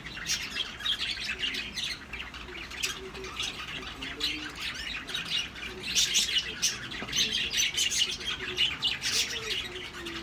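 Birds chirping and squawking, many short calls overlapping, busiest about six seconds in and again near the end.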